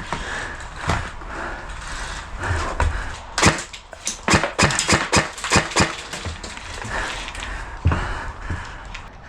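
Airsoft firefight: a string of sharp cracks and snaps from airsoft gunfire and BB hits, thickest from about three and a half to six seconds in.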